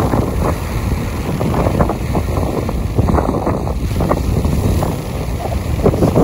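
Strong wind buffeting the microphone over high waves breaking and washing on a beach, a continuous rough rushing with a heavy low rumble and irregular splashes.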